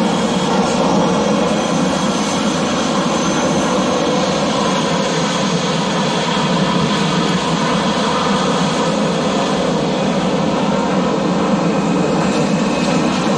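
Several Blue Angels F/A-18 Super Hornets running their jet engines on the ground while taxiing: a loud, steady jet noise with a faint high whine on top.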